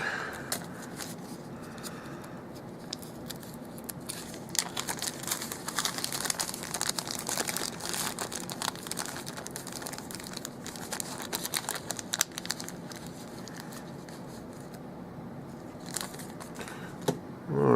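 Light crinkling and rustling with many small clicks: lock shims and their packet being handled and sorted. It runs from about two seconds in to about thirteen seconds, with a few more clicks near the end.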